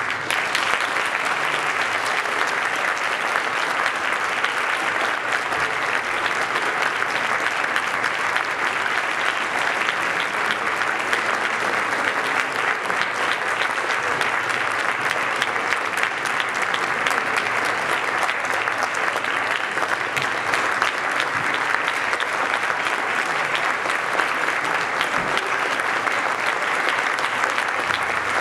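Audience applause that breaks out suddenly and continues as steady, dense clapping.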